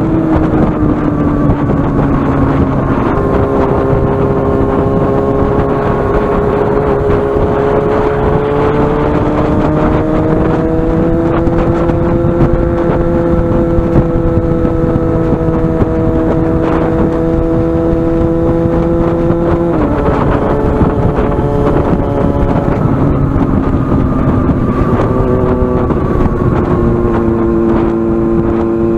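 Yamaha FZ6N's inline-four engine running through a carbon-fibre exhaust while riding, with wind rushing over the microphone. The engine note holds steady, climbs gradually after about eight seconds, drops suddenly about twenty seconds in, and changes pitch again near the end.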